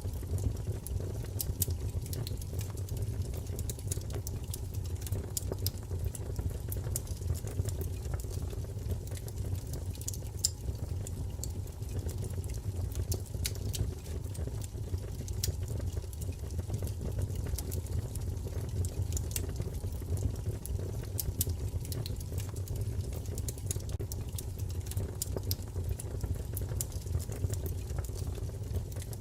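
Wood fire crackling in a fireplace: irregular small pops and snaps over a steady low rumble of the flames.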